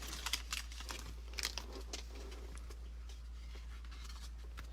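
Faint crinkling and small clicks of a foil trading-card pack wrapper and cards being handled, scattered irregularly.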